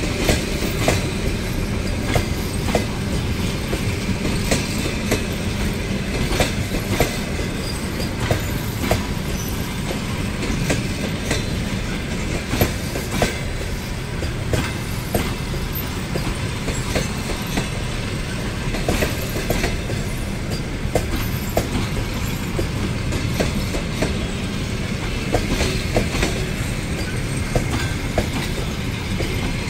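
Passenger coaches rolling past on the rails, wheels clattering over rail joints: a steady rumble broken by frequent sharp clacks.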